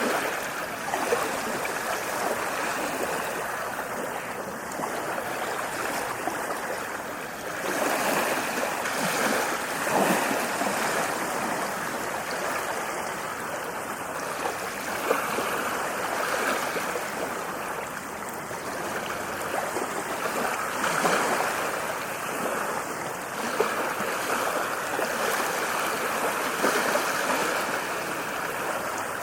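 Ocean waves breaking and washing ashore: a continuous rush of surf that swells every few seconds as each wave comes in.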